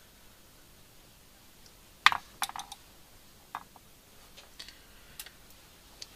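A handful of light, sharp clicks and taps from thread and tools being handled at a fly-tying vise while feathers are tied in. The first, about two seconds in, is the loudest, with a quick cluster just after it and a few fainter ones spread through the rest.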